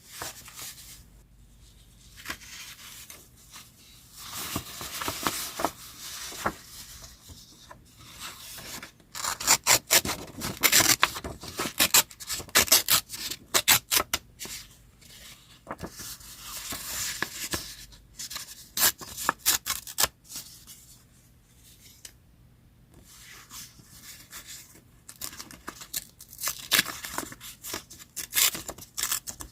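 Paper being cut with scissors and handled for a collage: quick runs of sharp snips, densest in the middle, between softer stretches of paper rubbing and sliding.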